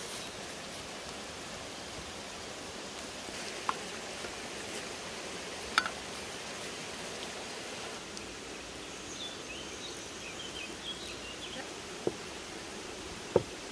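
Steady rushing of a nearby forest stream, with a few sharp clinks of kitchenware: a metal ladle against a pot of strawberry jam about six seconds in, and a glass teapot handled twice near the end. A few faint chirps come in around the middle.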